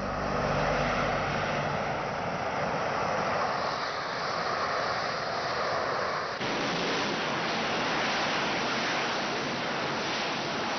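Harrier jump jet's Rolls-Royce Pegasus vectored-thrust turbofan running at full power as the aircraft hovers: a steady, dense jet roar. The roar changes abruptly about six seconds in.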